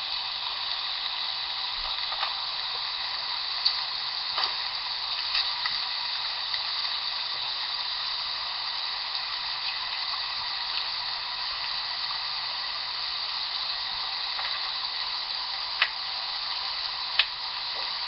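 Pieces of roast sizzling on a hot George Foreman grill with butter added on top, a steady hiss with a few sharp clicks now and then.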